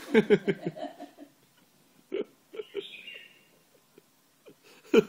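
A woman laughing: a quick run of short vocal pulses, then a few single short laughs about two seconds in.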